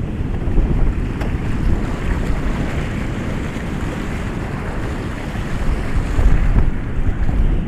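Ocean surf: waves breaking and washing in a continuous wash, with a low rumble of wind on the microphone. The surge swells slightly about half a second in and again around six seconds.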